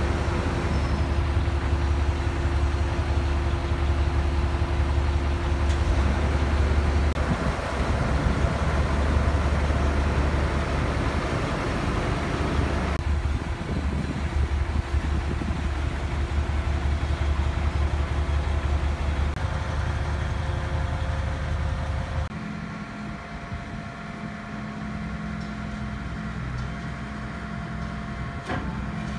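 Diesel engine of a Sumitomo ST500M mechanical truck crane running steadily. About 22 seconds in, the sound changes abruptly to a quieter, different engine hum.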